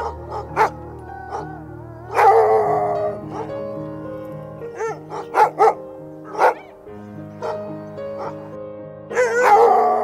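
A dog barking and yelping over background music: several short barks, with two longer, falling yelps about two seconds in and near the end.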